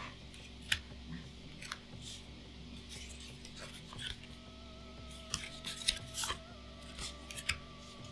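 Crinkling and clicking of a foil booster-pack wrapper and trading cards being handled: a scatter of short, sharp crackles, busiest in the second half.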